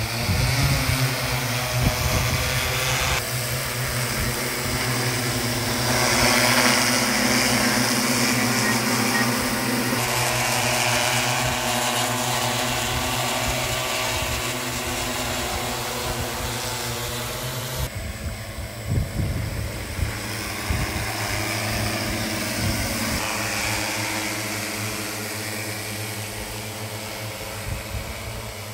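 Crop-spraying multirotor drone's propellers humming steadily as it flies. The hum shifts abruptly in pitch and loudness a few times.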